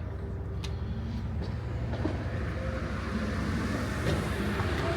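Steady low mechanical rumble, like background vehicle noise, with a hiss that builds a little from about two seconds in and a few faint clicks.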